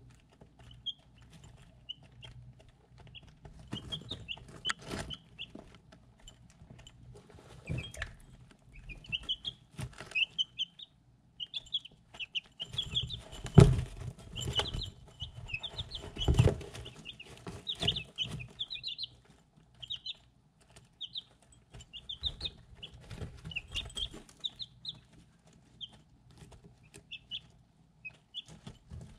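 Three-week-old chicks peeping in short, high chirps while pecking at feed in a ceramic dish, with beaks clicking and tapping on the dish. Two louder knocks come about halfway through.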